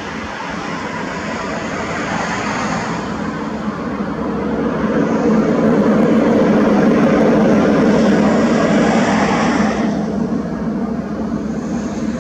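Jet aircraft engine noise, a steady rush that swells to its loudest in the middle and then loses its high hiss abruptly about ten seconds in.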